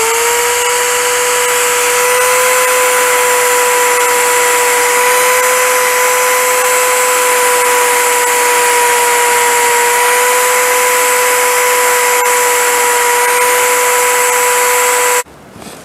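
Electric drill spinning a small wire wheel brush against an ornamental metal corner piece, scrubbing dirt out of its cracks. The motor holds a steady whine over a scratchy hiss, then cuts off near the end.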